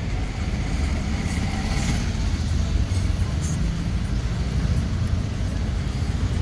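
Steady low rumble of road traffic and engines, heard from inside a car with its window open onto a busy street.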